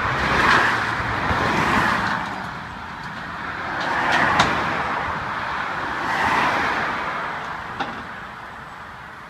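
Road traffic passing close by, three vehicles in turn, each swelling and fading over a couple of seconds. A sharp knock comes about four seconds in and another near eight seconds.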